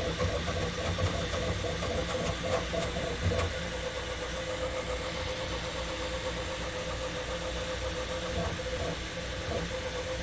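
Bambu Lab P1P 3D printer printing in ludicrous mode at 500 mm/s: the print head darts quickly back and forth over the raised text, its motors and cooling fans making a continuous machine noise with a steady hum.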